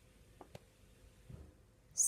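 Near silence with two faint clicks close together about half a second in and a soft low thud later: Pokémon trading cards being handled.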